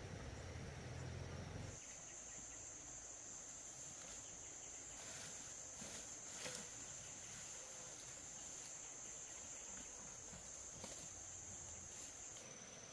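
Insects keeping up a steady, high-pitched drone, which grows louder about two seconds in and drops back a little near the end, with a few faint clicks or rustles in the middle.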